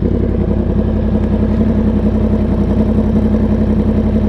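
Yamaha R1's inline-four engine idling steadily through an SC Project exhaust, its pitch holding even with no revving.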